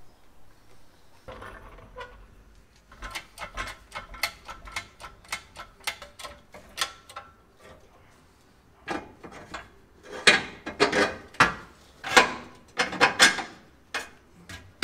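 Hand ratchet clicking in quick runs while undoing the transmission crossmember bolts under a pickup, with short pauses between runs.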